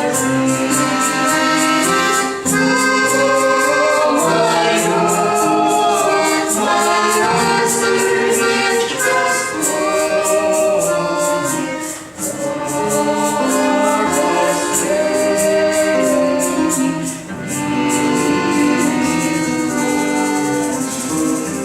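A group of voices singing a Russian folk song in chorus over instrumental accompaniment, with a steady ticking beat.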